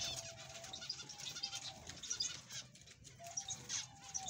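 A flock of zebra finches calling, with many short calls overlapping one another.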